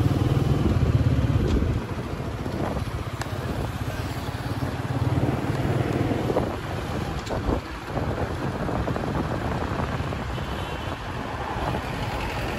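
A road vehicle under way: steady engine and road noise with a low rumble, louder for the first two seconds and then settling to an even drone.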